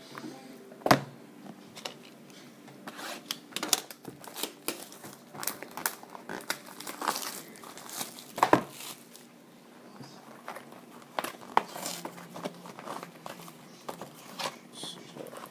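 Plastic wrapping crinkling and tearing as a sealed trading-card box is unwrapped, with irregular crackles throughout and a couple of sharper knocks about a second in and near the middle.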